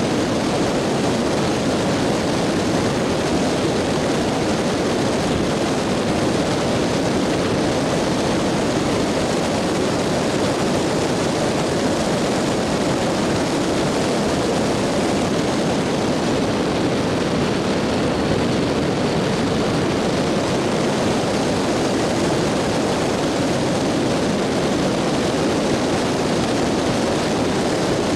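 Dacia Logan car driving on a paved road, heard from inside the cabin: a steady, even wash of tyre, road and engine noise that doesn't change.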